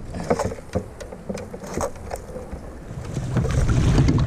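Scattered knocks and clicks on a fishing kayak, then a louder low rumble of wind on the microphone from about three seconds in.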